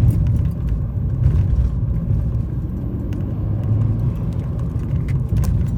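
Interior noise of a 2011 BMW 335i's N55 turbocharged straight-six being driven: a steady low engine and road rumble, with a few light clicks.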